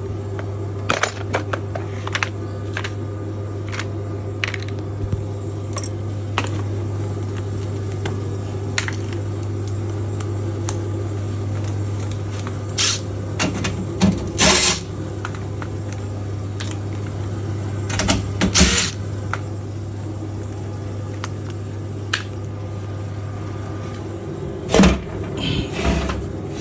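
Hand tools clinking and knocking on metal in scattered sharp clicks, with a few longer scraping bursts, over a steady low hum.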